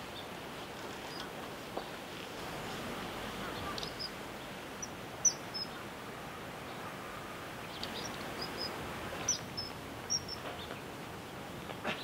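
Common kingfishers calling: short, sharp, high-pitched whistled notes, with the loudest about five seconds in and a run of quick calls between about eight and ten seconds, over a steady background rush.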